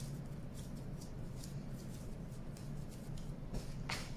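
Hands kneading and squeezing soft, sticky cold porcelain clay, giving faint irregular rubbing and squelching scratches, over a steady low hum. Near the end a louder scrape as the clay is pressed and dragged across a stainless steel surface to pick up crumbs.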